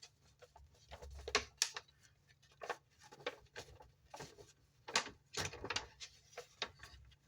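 Cardboard and paper handled on a tabletop: irregular rustles and light knocks, a dozen or so scattered through.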